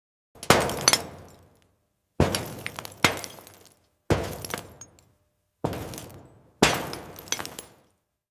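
Slow, heavy footsteps on a metal surface: five steps about a second and a half apart. Each is a sharp clank, most with a second, lighter knock, and each rings out briefly.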